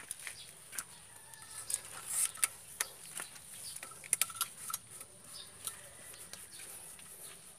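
Scattered sharp clicks and light scrapes of hands twisting a PVC pipe joint, over a faint steady high hiss.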